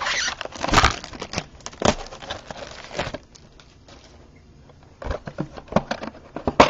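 Plastic shrink-wrap on a trading-card box crinkling and tearing as it is pulled off, a dense run of sharp crackles. After a quieter pause of about two seconds, scattered clicks and rustles as the cardboard box is handled and opened.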